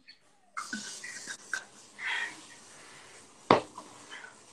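Heavy breathing of an exerciser catching her breath between HIIT rounds, with a single sharp knock about three and a half seconds in.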